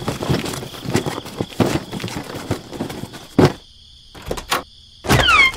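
Scuffling and rustling with many quick knocks and thumps, then one louder thump. Near the end comes a short falling whistle-like glide.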